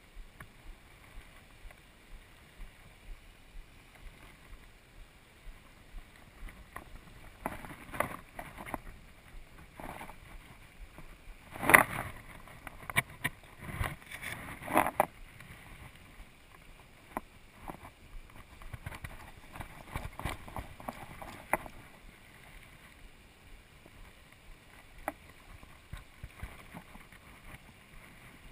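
Steady rush of a river's current, with faint ticks at a steady pace early on and a stretch of louder clicks and knocks about a third of the way in, the loudest a sharp knock near the middle.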